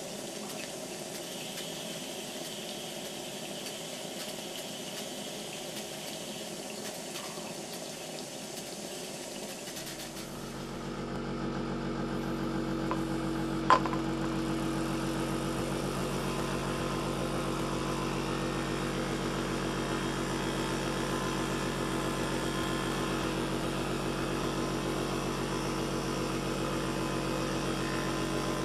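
A steady hiss from the steam feed to a Philcraft Penny Engine, a tiny single-cylinder oscillating engine that does not run well on saturated steam. About ten seconds in it gives way to the engine running fast and steady on compressed air, a constant even buzz over the hiss of the air, with one sharp click a few seconds later.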